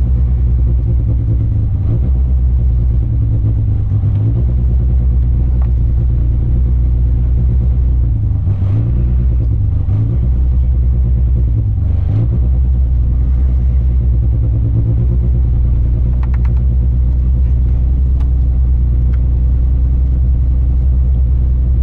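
VW Golf 3 GTI rally car's engine idling, heard inside the cabin, with the engine note shifting briefly a few times around the middle.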